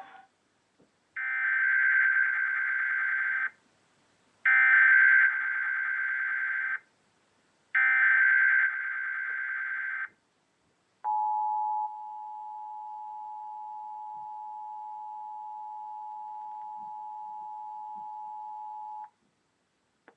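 Emergency Alert System tones over a TV broadcast: three bursts of SAME header data, each about two seconds long with about a second of silence between them, then the EAS two-tone attention signal held steady for about eight seconds before cutting off. This sequence opens an EAS alert, here a test tornado warning.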